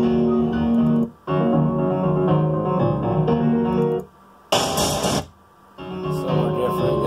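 A piano track playing back on an Akai MPC X, with sustained chords over a steady low note. It drops out briefly about a second in, and again around four seconds in, where a half-second burst of loud hiss starts and stops abruptly before the piano comes back.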